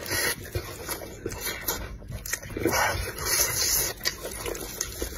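A person chewing and smacking loudly with the mouth open on a mouthful of rice-stuffed chicken wing, in irregular wet-sounding smacks and squelches.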